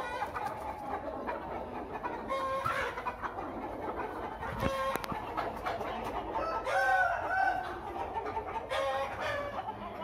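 A flock of Aseel chickens clucking, with loud pitched rooster calls breaking out four times, the longest about two-thirds of the way through.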